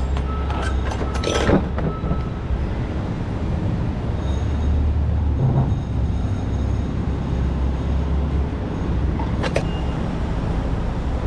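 Steady low rumble of a semi truck's diesel running at idle, with metal clanks from the trailer's swing doors being pushed open and swung back against the trailer's side: a few in the first two seconds and one more near the end.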